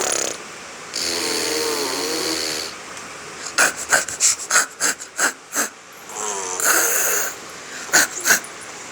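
A baby imitating a motorbike with his voice: a buzzing, breathy 'brrr' about a second in, lasting nearly two seconds. A quick run of short sharp pops follows, then a second brief buzz and two more pops near the end.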